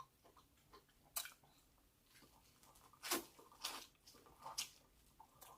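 A person chewing food close to the microphone: a few faint, short wet mouth smacks spread over a few seconds.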